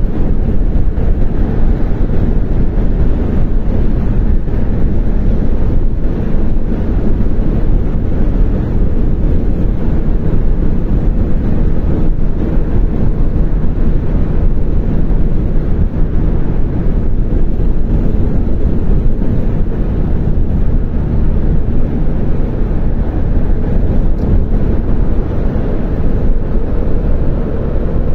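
Car cabin noise while cruising on a highway: a steady, loud, low rumble of engine and tyres on the road.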